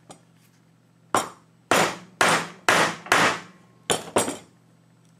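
Hammer blows on a chisel, about seven sharp strikes with a brief ring after each, driving the chisel into wooden knife-handle scales bonded to the steel tang with JB Weld epoxy to split them away. The blows come in a quick run, then a short pause and two or three more near the end.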